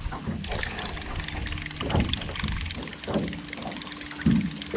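Water lapping and slapping against the hull of a small aluminum jon boat, with a few louder slaps, the strongest near the end, over a faint steady hum from its electric trolling motor.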